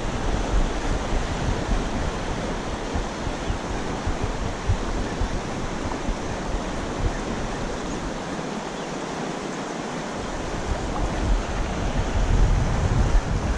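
Steady rush of a swollen, fast-flowing river running over a shallow stony bed and riffles, with gusts of wind rumbling on the microphone.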